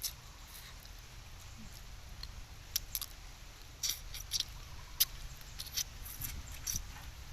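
Close-up eating sounds: irregular crisp clicks and smacks of chewing and crunching food, thickest in the second half, over a low steady background rumble.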